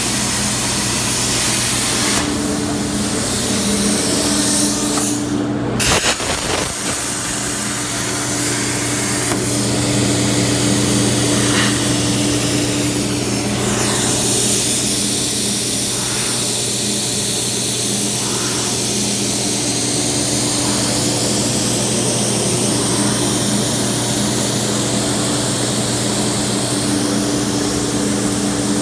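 Cutting torch on a CNC tracker cutting 3/8-inch steel plate: a steady hiss over a constant machine hum, with a brief sharp knock about six seconds in.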